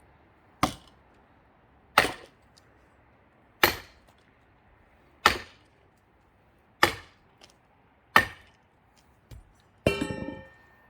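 Heavy blows on a partly split pine log with an axe blade stuck in it, six in a steady rhythm about one and a half seconds apart. Near the end one last blow rings with a metallic tone.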